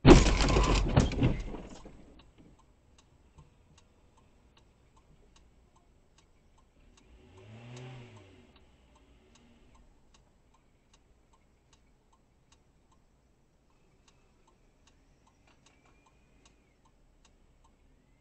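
A car crash: a sudden loud impact with a crunching rattle that dies away over about two seconds, the dashcam's car being struck. It is followed by faint regular ticking about twice a second, with a brief low tone that rises and falls about eight seconds in.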